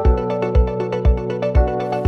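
Background music: an electronic track with a steady kick drum about twice a second under synth notes.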